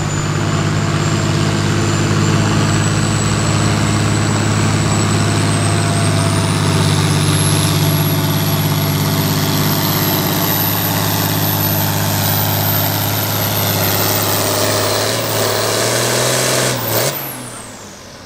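Farm stock diesel pulling tractor running hard at full throttle under load on the sled, with a steady engine note and a high whine that climbs in pitch partway through. Near the end the engine is throttled back and the sound falls away.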